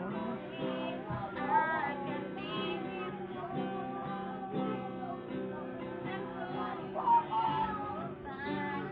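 A woman singing a song to a strummed acoustic guitar: steady guitar chords under a wavering sung melody.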